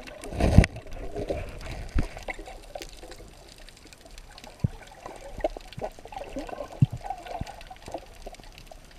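Water moving around a camera recording underwater, heard muffled: a loud burst of swishing water in the first second, then a low wash of water noise with scattered sharp knocks and clicks.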